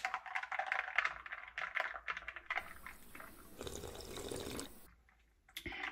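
Ice cubes clinking and rattling in a glass as an iced matcha latte is stirred with a straw, followed by a sip drawn through the straw.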